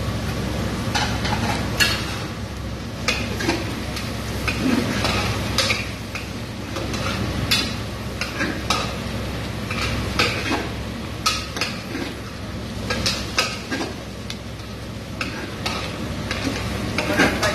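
A metal spatula scraping and clinking irregularly against a large stainless steel stockpot as chopped vegetables and herbs sizzle in fat, over a steady low hum.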